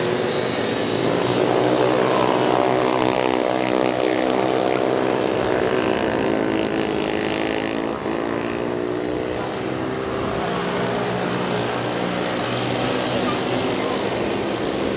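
Several racing quad ATV engines running hard together, their overlapping pitches rising and falling as the riders accelerate and ease off through the corners.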